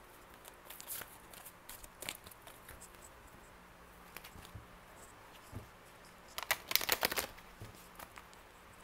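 A deck of angel oracle cards being shuffled by hand: scattered soft card rustles and taps, then a quick flurry of card flicks about six and a half seconds in.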